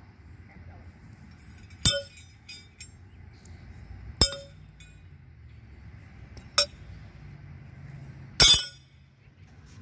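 Four sharp metallic clanks of thrown horseshoes hitting the steel stake and the other horseshoes, roughly two seconds apart, each with a brief ring; the last is the loudest.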